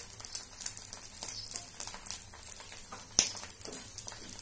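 Oil crackling and popping irregularly under a corn dosa frying on a hot iron dosa tawa, with one sharp click about three seconds in.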